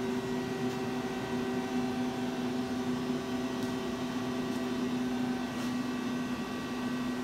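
Steady electrical hum of a powered-up Femco Durga 25-E CNC turning center standing at idle, its motors and electrics running with the spindle stopped.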